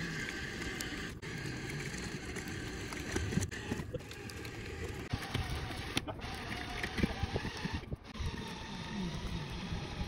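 A winch motor running steadily as it drags a large walnut log on a cable, with a few brief breaks.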